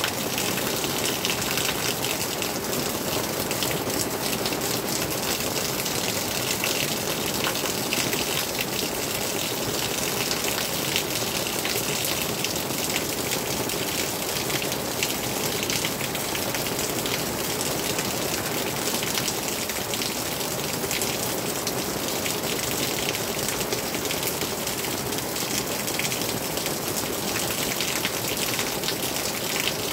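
Steady rain: a dense, even patter of drops over a constant rushing hiss, unchanging throughout.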